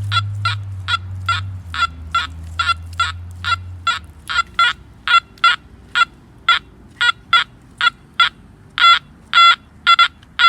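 Metal detector sounding repeated short target beeps, about three a second, as the coil is swept back and forth over a buried object. It is a strong, repeatable signal, the mark of a good target. A low hum under the first few seconds fades out.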